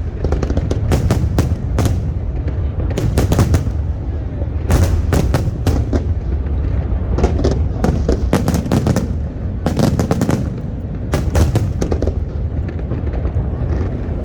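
Fireworks display: rapid clusters of sharp bangs and crackles every second or two, over a constant low rumble of booms.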